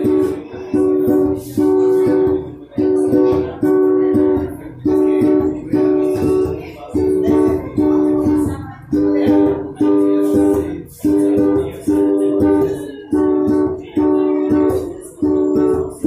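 Ukulele strumming chords in a steady rhythm, an instrumental passage with no singing.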